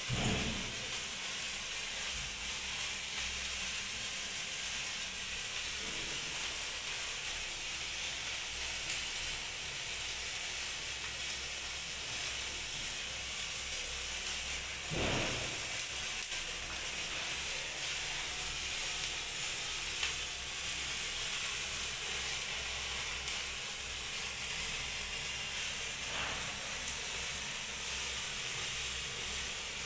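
Hand-held sparkler burning with a steady fizzing hiss, broken by a few brief louder pops, the clearest about halfway through.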